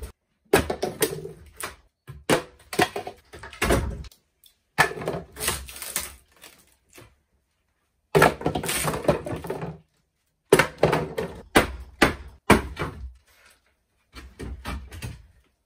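An old wooden cupboard being broken apart with a hammer: knocking blows and wood cracking and splintering in a series of short bursts, with brief pauses between them.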